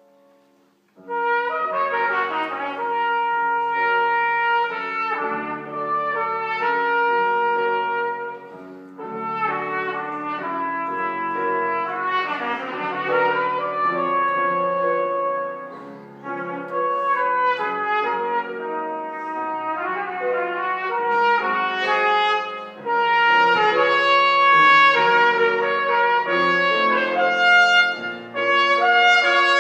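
Trumpet and grand piano playing together: a melody in phrases over piano chords, coming in about a second in after a near-quiet start.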